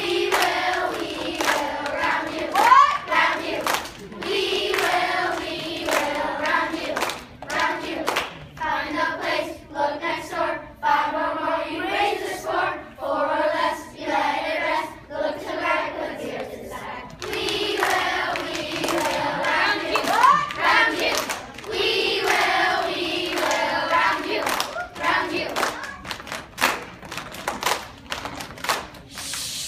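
A group of children singing a song together while clapping their hands, the claps sharp and frequent throughout the singing.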